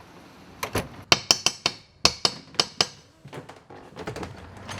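Rapid knocking on a door: about ten sharp raps in three quick bursts, some with a short bright ring.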